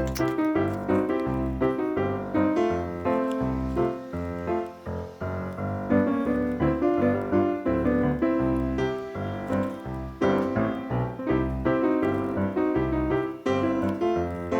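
Background music: an upbeat keyboard/piano tune over a steady bass pulse.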